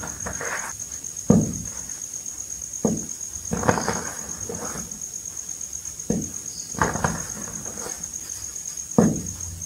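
Reformed gym chalk balls crushed and crumbled in the hands: about six sharp crunches, each trailing off into a soft rush of powder sifting through the fingers. A steady high-pitched whine runs underneath.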